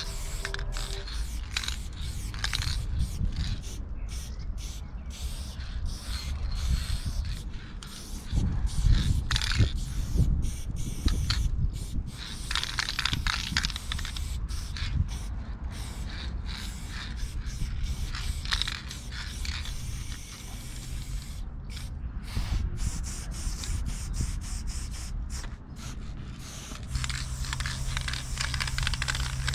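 Aerosol spray paint cans hissing in repeated passes of differing length, stopping and starting with short gaps between, over a low rumble.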